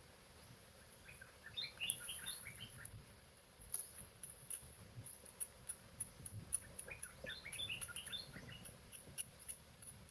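A small bird twittering in two short bursts of quick chirps, over a run of sharp, very high ticking clicks.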